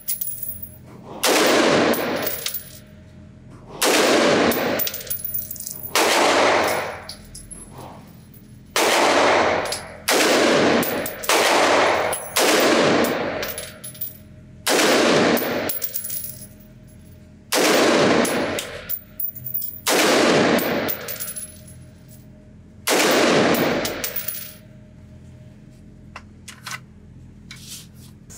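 Noveske Infidel AR-15 rifle firing 5.56 mm rounds slowly from a bench rest: ten single aimed shots about two to three seconds apart, each ringing out off the concrete of an indoor range. A few faint clicks follow near the end.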